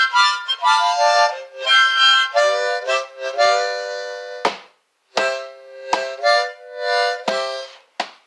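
Harmonica played in chords, several notes sounding together and changing every half second or so, with a brief break about halfway through; the playing stops just before the end.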